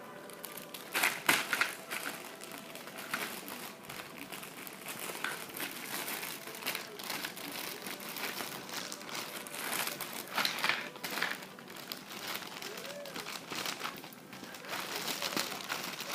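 Plastic packaging crinkling and rustling in irregular bursts as it is cut open and handled, loudest about a second in.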